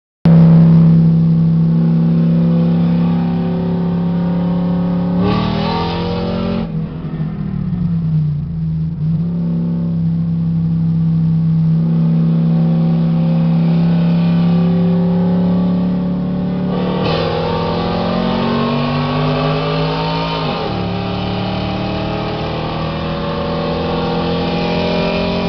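Truck engines revving for a race, held at a steady high pitch for long stretches, with the revs dipping and climbing twice: about five seconds in and again near the seventeen-second mark.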